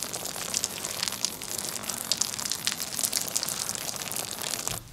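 A steady stream of water splashing and crackling onto a leather jacket, the film's sound for a man urinating out of a window onto someone below. It stops shortly before the end.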